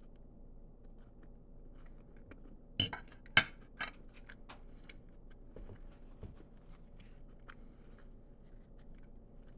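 Tableware knocks and clinks during a meal: two sharp knocks about three seconds in, the second the louder, then scattered faint clicks.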